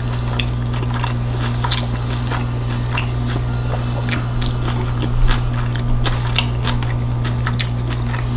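Close-miked chewing of a salmon taco in a soft tortilla: wet mouth smacks and small clicks, irregular through the whole stretch, over a steady low electrical hum.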